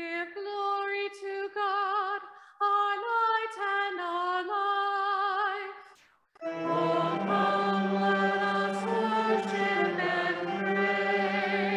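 A psalm refrain sung as call and response. A solo cantor with vibrato sings the leader's line, then after a short pause a fuller group of voices sings the response over a low held note.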